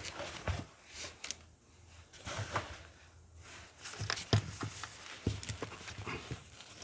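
Irregular light clicks, taps and knocks of hands handling small parts, over a faint steady low hum.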